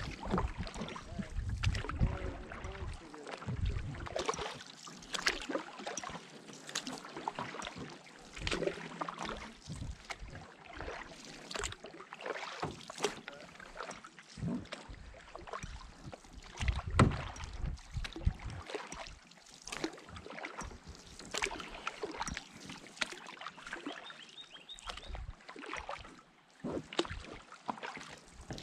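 Canoe paddling: the paddle blade dipping and pulling through the water with splashing and dripping, and irregular clicks and a few knocks, the loudest about two-thirds of the way through.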